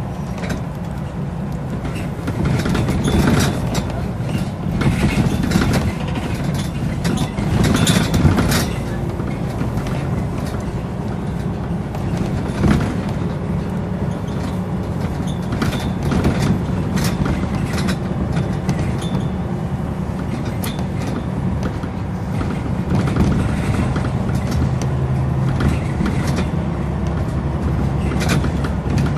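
Scania L94UB bus with Wright Solar bodywork under way, its diesel engine running steadily, with frequent rattles and knocks heard throughout.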